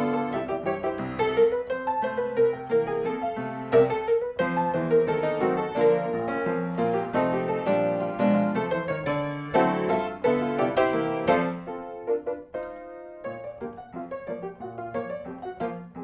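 Background piano music, many quick notes, becoming sparser and quieter about two-thirds of the way through.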